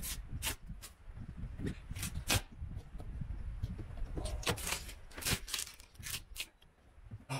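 Flexible solar panel being peeled off a camper van roof: double-sided tape tearing loose in a series of irregular crackles and snaps as the panel bends up, the bending cracking its cells. Quieter near the end.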